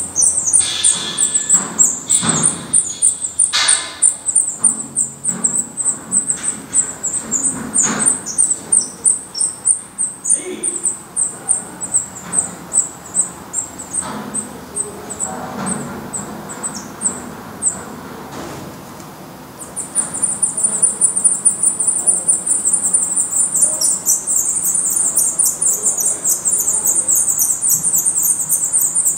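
Black redstart nestlings begging for food: a rapid stream of very high, thin cheeps, many a second. The calling drops away for a second or two about two-thirds of the way through, then starts again, denser, as a parent stands at the nest.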